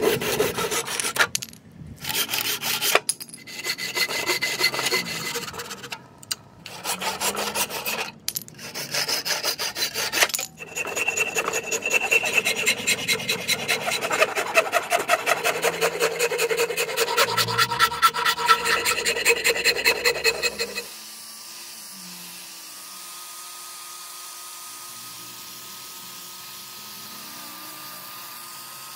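Hand saw cutting through a rosewood board in bursts of strokes with short pauses, then a rasp filing the rosewood axe handle in rapid, continuous strokes. About two-thirds of the way in the strokes stop and give way to a steady, much quieter hum from an angle grinder with a sanding pad smoothing the handle.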